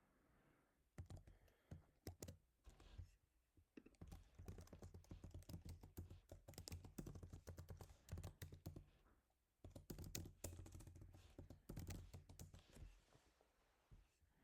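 Quiet, rapid typing on a computer keyboard, keystrokes in quick runs starting about a second in, with a brief pause about nine seconds in, tapering off near the end.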